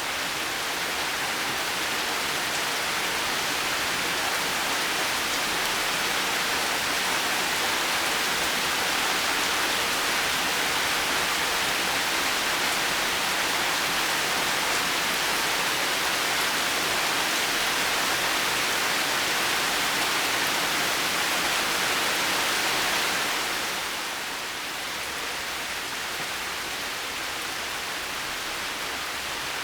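Heavy rain falling steadily, an even hiss with no thunder. It eases a little about 23 seconds in.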